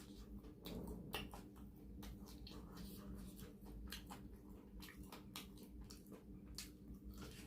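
Faint close-up eating sounds: irregular small clicks and smacks of chewing and biting, several a second, over a low steady hum.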